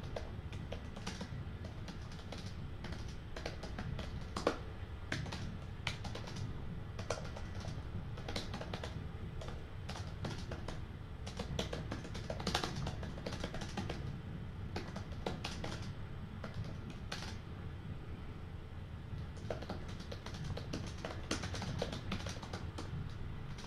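Typing on a computer keyboard: irregular runs of key clicks with short pauses, over a low steady hum.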